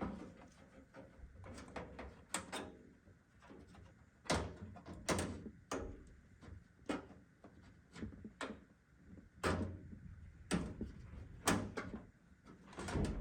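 Motherboard being set into a computer case: irregular knocks and clacks of the board against the case and its standoffs, a few louder ones.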